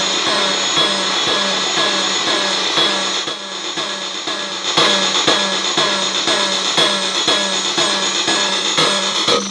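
Circuit-bent Korg DDD-1 drum machine patched through a digital effect, playing a glitchy looped pattern: a stuttering hit repeating about two and a half times a second over steady buzzing tones. The loop thins out and drops in level for a second or so partway through, then comes back.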